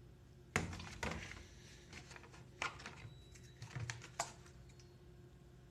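About five sharp plastic clicks and knocks, spaced irregularly over the first four seconds, from handling a detergent container while adding detergent to the washer.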